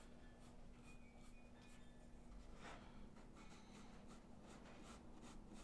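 Faint repeated swishes of a big soft brush stroking across drawing paper, blending blue pastel into charcoal, over a low steady hum.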